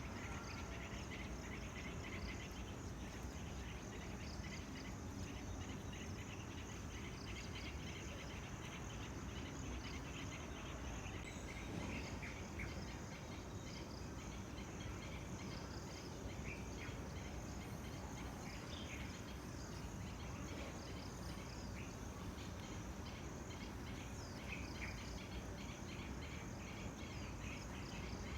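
Tropical outdoor ambience: insects chirring steadily with rapid repeated chirps, birds calling now and then, over a steady low background noise.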